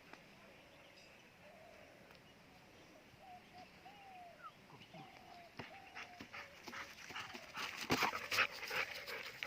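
Siberian husky whining in a string of short, high whimpers. Near the end a burst of loud close scuffing and clattering noise.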